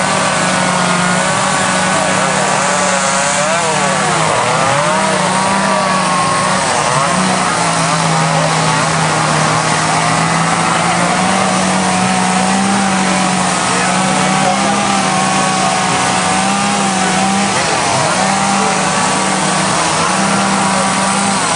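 Chainsaws and power carving tools running continuously: a steady motor drone under higher whines that rise and fall in pitch as the tools rev.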